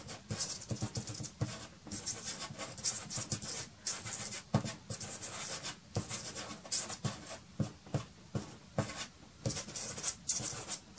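Soft pastel stick scratching across black pastel paper in a quick, irregular run of short dabs and strokes as dark greens are laid in.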